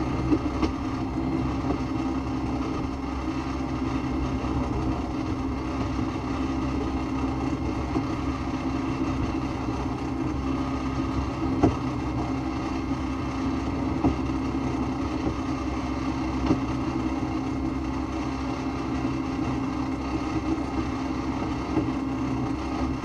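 Off-road vehicle's engine idling steadily, with a few short sharp clicks, the loudest about halfway through.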